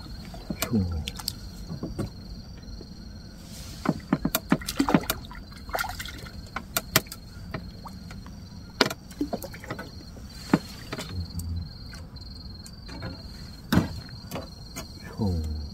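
Scattered clicks, knocks and rustles of fishing tackle being handled as a hooked catfish is brought in, over the steady chirping of insects.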